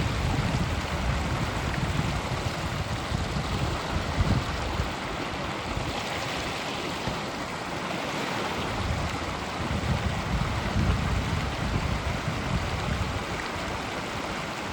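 Creek water running steadily, with uneven gusts of wind buffeting the microphone.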